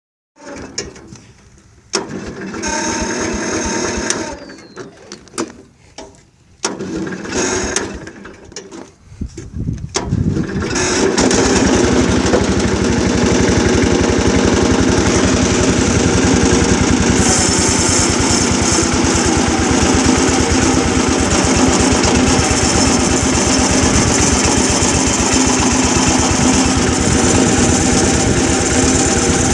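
An engine being cranked in several short tries, with the strange noise that comes with its cranking, then catching about ten seconds in and running steadily at idle.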